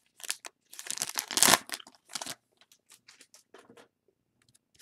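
Foil wrapper of a Topps Gallery baseball card pack being torn open and crinkled, with the loudest rip about a second and a half in. Lighter crinkles and ticks follow and die away near the end.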